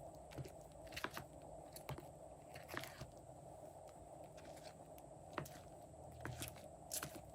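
Slime being kneaded and stretched by hand, giving soft sticky clicks and crackles at irregular intervals over a faint steady hum.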